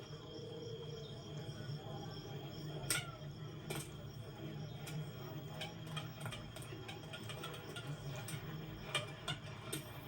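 Film sound effects: a steady low hum under many irregular sharp clicks and ticks, the loudest about three seconds in.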